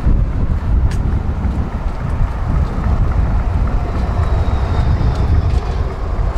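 Tram running along the track: a steady low rumble, with a single click about a second in and a faint high whine in the middle.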